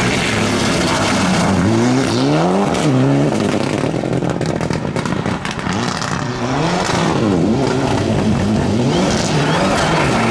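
Mitsubishi Lancer Evo IX rally car's turbocharged 2.0-litre four-cylinder engine revving hard at full throttle, its pitch climbing steeply and dropping back again and again through gear changes. The sound dips briefly about halfway through before the revving climbs again.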